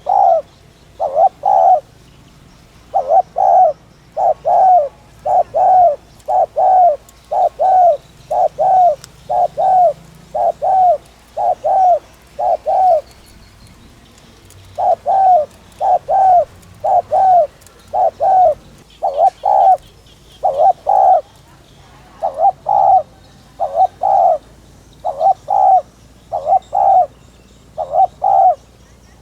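Spotted dove giving its rapid urging coo ('thúc gù'), short coos mostly in pairs repeated over and over, with a pause of about two seconds near the middle.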